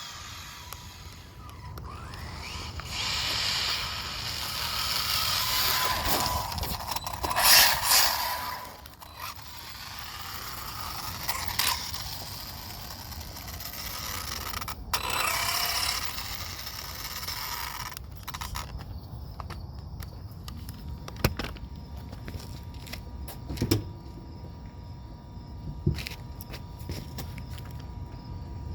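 RC car converted to a brushless motor, driving around, its motor and tyres growing louder and fading as it moves, loudest about eight seconds in. After about eighteen seconds it is quieter, with scattered clicks.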